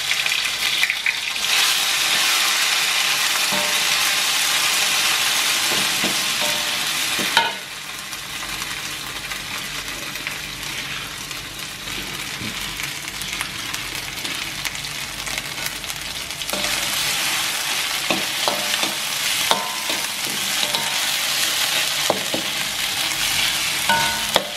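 Ground spice paste of chili, shallot and garlic sizzling as it fries in hot oil in a steel wok, stirred with a spatula, with a few short knocks. The sizzle is loudest for the first several seconds, drops back suddenly, then builds again in the last third.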